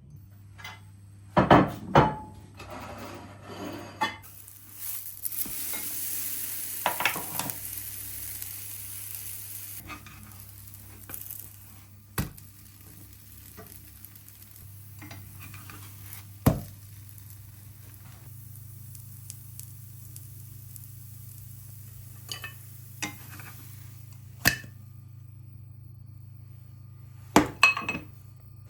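Kitchen food-prep sounds: dishes and utensils clattering in scattered sharp knocks, with a stretch of hissing about five to ten seconds in, over a steady low hum.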